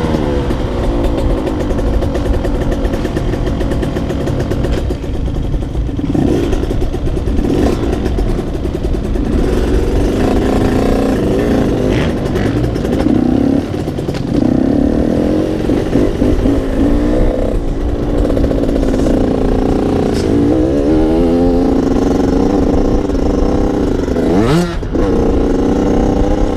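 Motocross dirt bike engine heard from the bike itself, revving up and down as it rides, the pitch rising and falling between shifts and throttle changes, with a sharp drop and climb near the end. A few short rattles and knocks of the bike over the ground.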